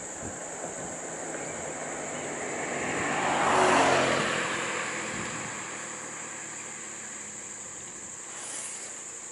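A road vehicle passes close by. Its engine and tyre noise swells to a peak about four seconds in and then fades, the engine note dropping in pitch as it goes past. A steady high-pitched insect drone runs underneath.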